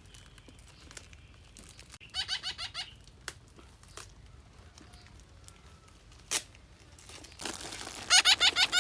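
Young parrots giving two quick runs of squeaky chirps, about two seconds in and again near the end, with scattered clicks and a rustle of crinkling near the end.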